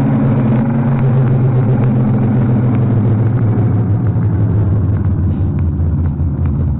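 Loud low rumble with steady humming tones that drop lower about halfway through, part of an emergency alert alarm recording.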